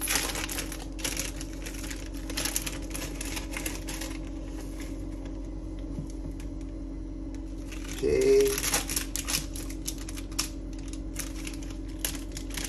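Plastic instant-noodle packaging crinkling and rustling as it is opened and handled. The crinkling goes quiet for a few seconds in the middle, then starts again about eight seconds in. A steady low hum runs underneath.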